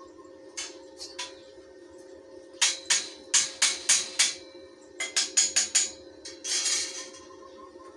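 Two quick runs of sharp metal taps on a tubular steel grill frame, about four a second, then a short rough burst near the end: hammering on fresh welds, as in chipping off slag. Steady background music underneath.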